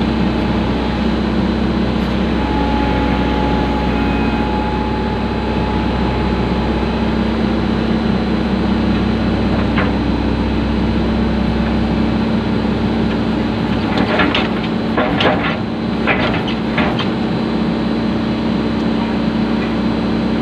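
Excavator's diesel engine running steadily under hydraulic work, with a deep rumble that eases about twelve seconds in. A short run of knocks and clatters comes about two-thirds of the way through.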